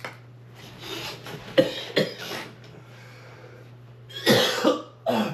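A young man coughing hard in three or four bouts after inhaling a big hit of vapour from a vape cartridge.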